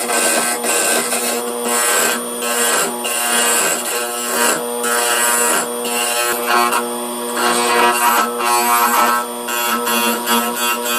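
Homemade wood lathe running with a steady motor whine while a hand chisel scrapes and cuts a small spinning piece of wood, the scraping coming and going as the tool is pressed in.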